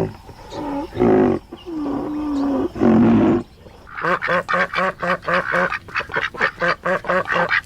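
A few drawn-out animal calls that bend in pitch, then from about four seconds in a duck quacking in a fast, even run of about four quacks a second.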